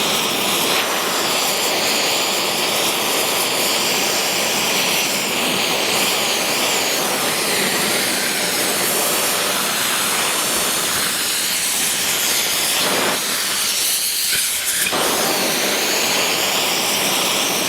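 Gas torch burning with a steady, hissing flame, heating an aluminium mould so the lead won't chill when it is poured.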